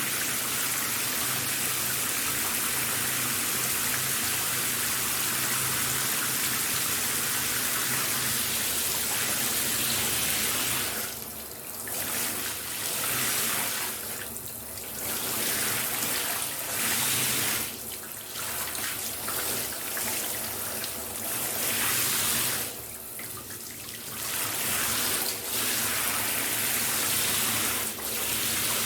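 Shower running, a steady hiss of spray. In the second half the hiss drops away briefly several times and comes back.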